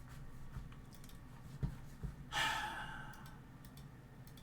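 A man sighs once into a close microphone, a breathy exhale lasting under a second about two seconds in. A faint click comes just before it.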